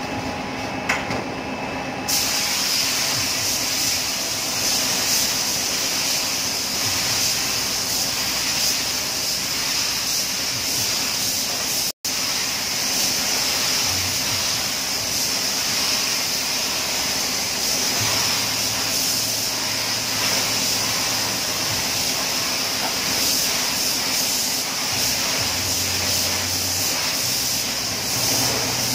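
Compressed-air paint spray gun hissing steadily as it sprays blue paint onto a car body, starting about two seconds in, over a steady low hum.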